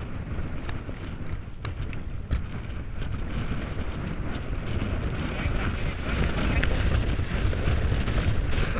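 Wind rushing over the microphone of a camera riding along with a road bicycle, mixed with road rumble and a few small clicks, growing a little stronger about halfway through.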